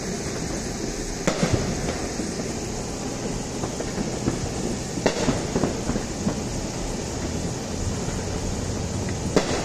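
Neighborhood fireworks going off at a distance: three sharp bangs about a second in, about five seconds in and near the end, with smaller pops and crackles between them, over a steady rumbling background.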